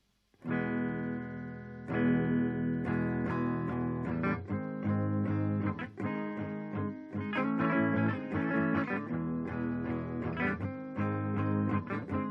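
Electric guitar played clean through an amplifier with the transistor boost pedal bypassed: a chord rings out about half a second in, another at about two seconds, then quicker picked notes and chords follow.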